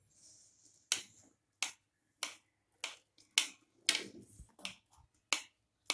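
Knife blade clicking against a plate as it cuts down through soft steamed dhokla, a sharp click about every half second, some nine in all.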